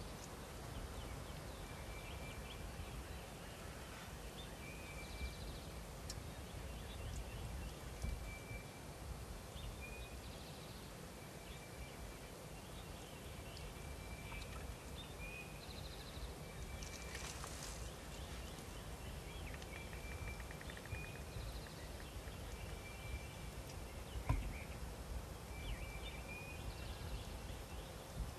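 Quiet field ambience with a steady low rumble. A songbird repeats a short high whistle every couple of seconds, and a wild turkey gobbler calls, including gobbles. There is a brief louder rush about two-thirds of the way through and a single sharp thump near the end.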